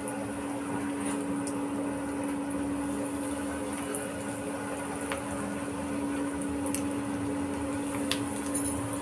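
Breadcrumb-coated paneer cheese balls deep-frying in hot oil: a steady sizzling and bubbling, over a steady hum, with a few faint clicks.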